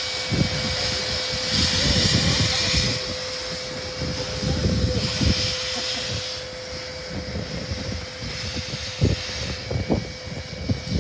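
Victorian Railways K-class 2-8-0 steam locomotive K183 pulling away, its exhaust chuffing in irregular low beats with bursts of steam hiss every few seconds over a steady hum. The sound grows fainter as the engine moves off.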